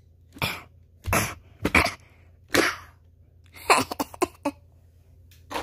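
A child's voice making about seven short, hoarse, unpitched bursts in a row, vocal sound effects for a toy dinosaur's attack.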